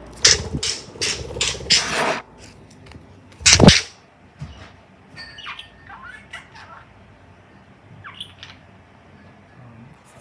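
Budgerigar giving a quick run of harsh screeches ("gya!") in the first two seconds, then one louder harsh burst about three and a half seconds in. After that come soft, scattered chirps.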